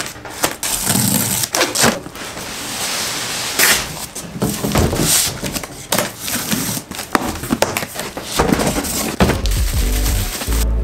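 A cardboard shipping box being unpacked: a knife cutting the plastic strapping and tape, the cardboard flaps rustling and knocking as they are opened, and bubble wrap crinkling as parts are lifted out near the end. A run of clicks, scrapes and rustles, with a longer rasping stretch about two to four seconds in.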